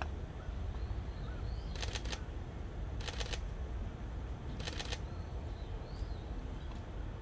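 Three short bursts of rapid clicking, each under half a second, about two, three and nearly five seconds in, over a steady low rumble.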